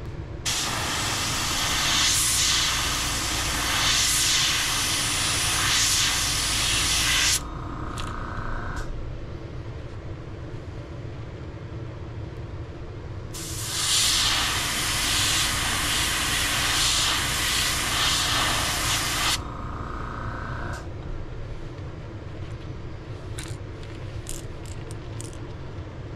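Airbrush spraying lemon yellow paint onto a crankbait in two long hissing bursts of about seven and six seconds, each trailing off in a shorter, softer hiss, over a steady low hum. A few light clicks near the end.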